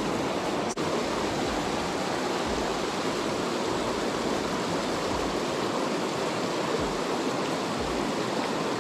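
Klamath River flowing: a steady, even rush of moving water.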